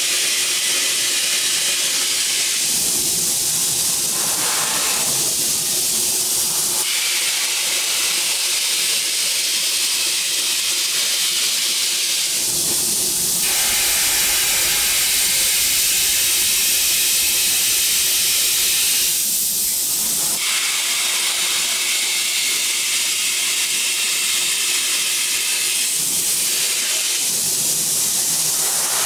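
Loud, steady hiss of a compressed-air spray gun coating cast-aluminium wok bodies, shifting in tone several times, with a faint steady machine hum beneath.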